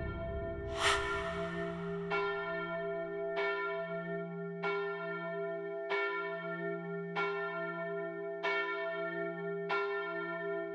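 A bell struck at an even pace, eight strikes about a second and a quarter apart, each ringing on and fading over a steady hum.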